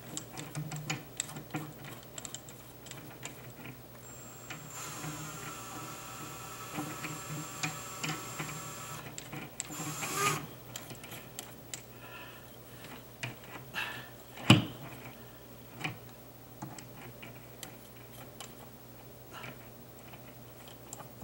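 Cordless drill motor running steadily for about four and a half seconds, amid scattered clicks and knocks of the drill and its flexible bit being handled; one sharp knock stands out about two thirds of the way through.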